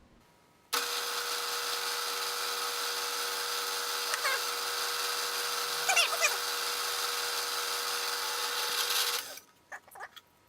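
A small high-speed power tool switches on abruptly, runs steadily for about eight and a half seconds while cutting to elongate a hole in a metal clamping plate, then switches off. A few brief squeaks come from the cut near the middle.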